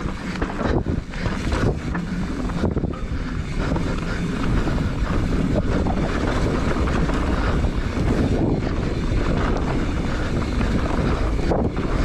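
Wind buffeting an action camera's microphone as a mountain bike rides down a dirt singletrack, with the steady rumble of the bike rolling over the trail.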